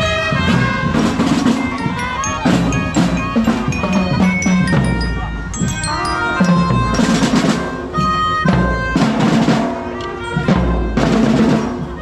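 Music with heavy drum beats and other percussion under a pitched melody.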